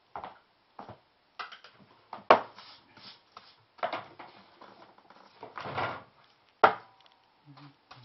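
Hand brush sweeping the floor into a plastic dustpan: a run of short scratchy strokes, with two sharp knocks, one about two seconds in and one near the end, the loudest.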